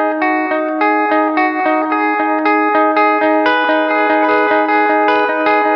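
Electric guitar played through a Digitech RP1000 multi-effects preset with a pitch-drop effect and no chorus: a quickly picked line of single notes, about three a second, over one held, ringing note.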